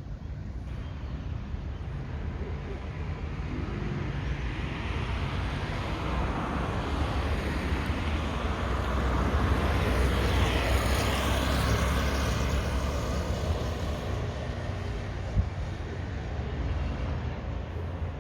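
A motor vehicle passing by: its engine and tyre noise build up, are loudest a little past halfway, then fade.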